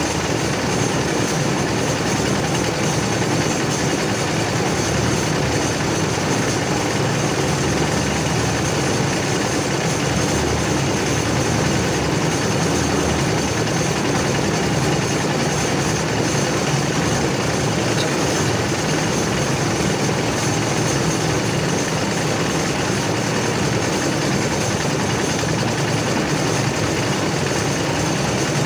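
Concrete mixer's engine running steadily, an even mechanical drone that does not change or pause.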